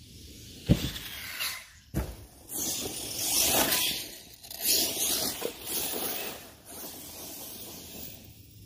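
Arrma Talion RC truggy knocking down hard twice, about a second apart, then its tyres scrabbling and hissing over the ground in loud surges for several seconds before fading near the end.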